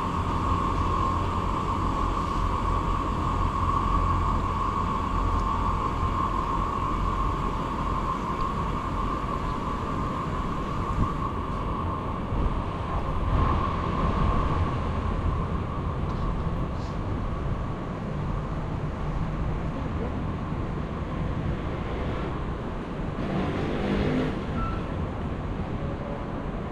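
City street ambience: a steady low traffic rumble with a steady mid-pitched hum that fades about halfway through, and a brief louder passing noise near the end.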